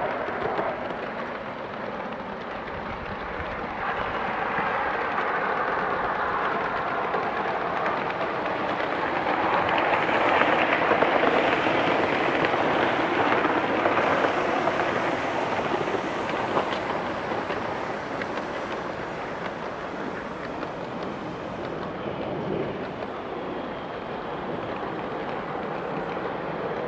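Kingscale Gauge 3 live-steam model of the LMS Duchess locomotive running with its coaches on garden-railway track, a steady rushing noise of exhaust and wheels on rail. It grows louder for several seconds midway as the train passes close, then eases off.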